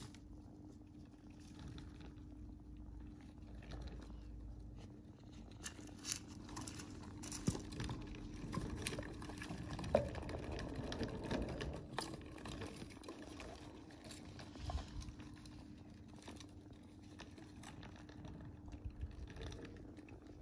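Faint rustling and scattered light clicks of hamsters scrabbling about a plastic-based cage in wood-shaving bedding, busiest about halfway through, over a steady low hum.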